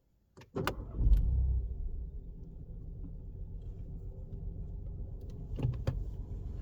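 Ford Fiesta ST engine starting about half a second in after a couple of sharp clicks, flaring up briefly, then settling to a steady idle. Two more sharp clicks come near the end.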